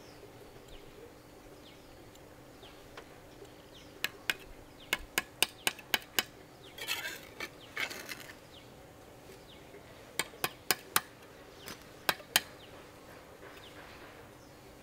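Sharp clinks and taps of hard objects knocking together, in two runs of quick strikes, with a brief scraping between them.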